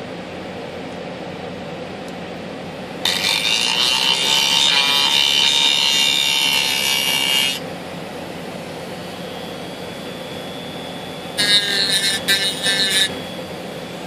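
Handheld rotary tool with a cut-off wheel grinding into the glider's wooden tray, cutting hot enough to scorch the wood. There is one steady cut of about four and a half seconds starting about three seconds in, then a short, broken burst of cutting near the end.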